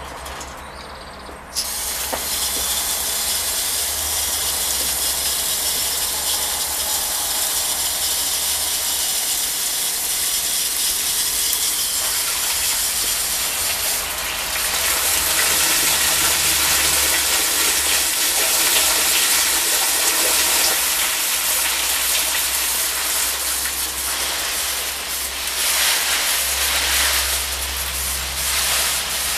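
Garden hose spray nozzle turned on about a second and a half in, then a steady hiss of a strong water jet spraying onto ivy and shrub foliage, getting louder about halfway through.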